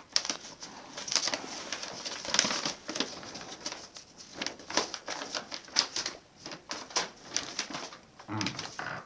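Sheets of paper being unfolded and handled, rustling and crinkling in an irregular run of crisp rustles.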